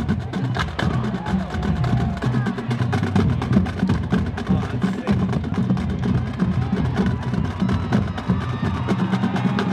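Marching band drumline of snare drums, tenor drums, bass drums and crash cymbals playing a fast, dense cadence.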